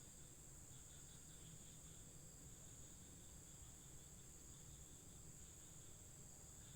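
Faint evening insect chorus: a steady high-pitched trill, with a fainter wavering trill lower down, over a low rumble.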